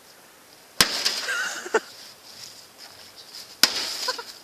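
A golf club striking the stripped metal parts of a microwave oven twice, nearly three seconds apart. Each hit is a sharp crack followed by a short high rattle of ringing metal.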